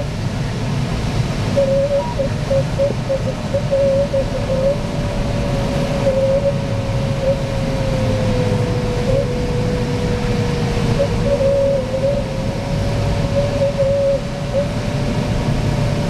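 Steady rush of airflow in a Cirrus 75 glider's cockpit in gliding flight. Over it runs a thin tone that breaks into short beeps at times, sinks lower for a few seconds midway, then rises back.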